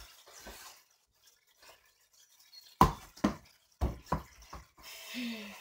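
A near-silent stretch, then about five sharp knocks in quick succession, roughly half a second apart.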